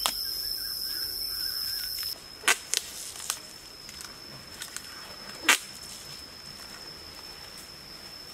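Adhesive tape being pulled off the roll in several short sharp rips, the loudest about five seconds in, over a steady high insect drone.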